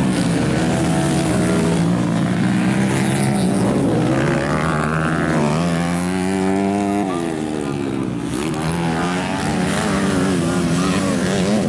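Dirt bike engines revving hard as motocross bikes race around a dirt track. The pitch climbs and drops several times as the bikes accelerate, back off and pass.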